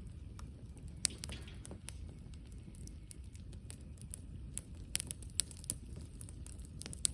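Wood campfire crackling: scattered sharp pops over a low steady rumble, with a few louder pops about a second in, around five seconds in and near the end.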